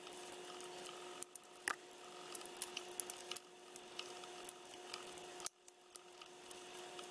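Irregular light plastic clicks and scrapes as the snap-fit clips holding the Sony HDR-AS20 action camera's plastic inner frame are pried apart by hand.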